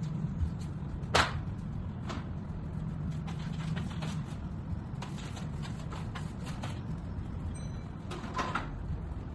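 A steady low hum with a few sharp knocks and clatters from things being handled, the loudest knock about a second in and another cluster near the end.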